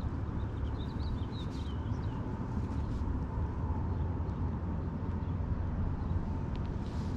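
Wind rumbling on the microphone, with a bird chirping briefly about a second in.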